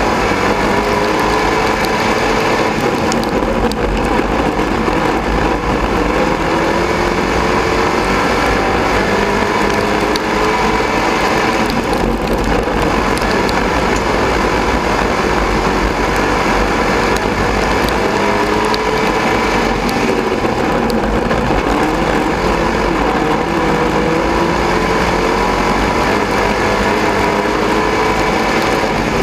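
Sport modified dirt-track race car's V8 engine running hard under race load, heard from inside the cockpit. Its pitch rises and falls over and over as the throttle goes on and off through the turns.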